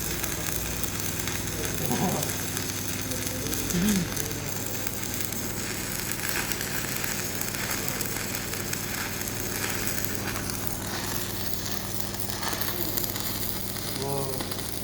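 Electric arc welding: the arc crackles and sizzles steadily as a weld bead is run, over a steady low hum.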